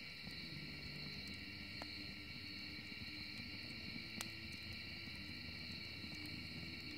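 Small wood fire in a metal fire pit burning with a low rumble and a few sharp pops, the loudest about four seconds in, over a steady high chirring of insects.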